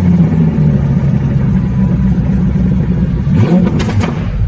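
A car engine running loud and steady, then revved up briefly about three and a half seconds in.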